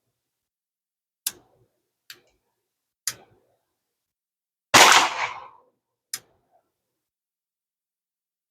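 Four short sharp cracks, and about five seconds in one much louder gunshot with a long fading tail.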